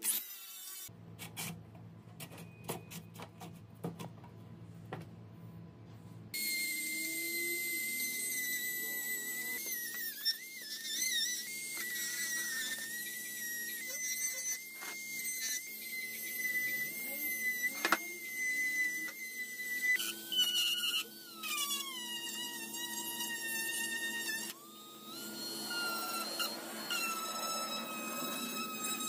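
A small high-speed electric power tool running with a steady high whine that wavers and dips in pitch as it is loaded, then picks up again. For the first few seconds there is only a low hum with scattered clicks.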